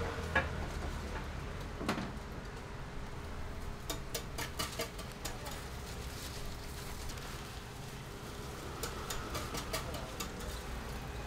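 Market food-stall ambience: a steady low hum with scattered light clicks and taps of things being handled, bunched together around the middle and again near the end.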